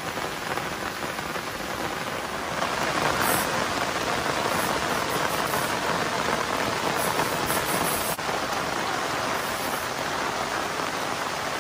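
Heavy rain pouring steadily onto the river and sandy bank, getting heavier about two and a half seconds in.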